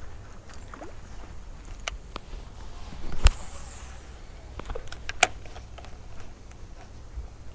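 A fishing cast from a small boat: one sharp snap, the loudest sound, about three seconds in, followed by a brief high hiss, then another sharp click about two seconds later. A low steady rumble and scattered small clicks run underneath.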